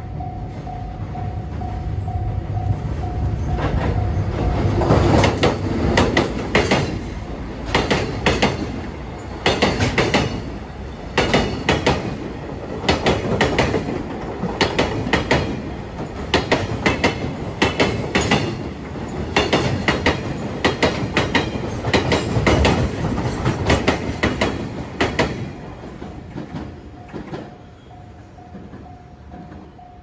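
DD200 diesel-electric locomotive passing close with a low engine rumble. It is followed by a freight train's container wagons, whose wheels click over the rail joints in repeated clusters, fading near the end. A level-crossing warning bell rings steadily in the first few seconds and comes back as the train moves away.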